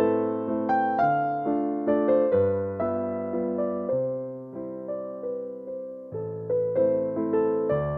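Background music: a slow solo piano waltz in A minor, with notes struck at a steady lilting pace and left to ring and fade.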